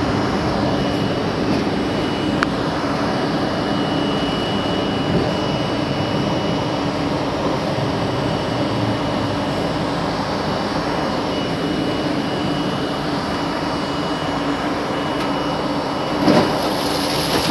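R32 subway car running on elevated track as it moves away from a station: a steady motor hum and wheel rumble with a faint steady whine. Near the end comes a single thump, followed by a hiss.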